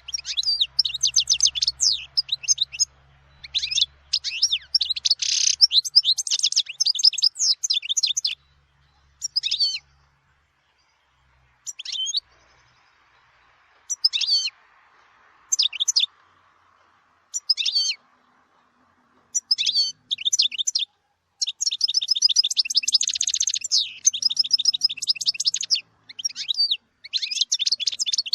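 European goldfinch singing in rapid twittering phrases. In the middle it gives only short separate calls, then long unbroken phrases resume.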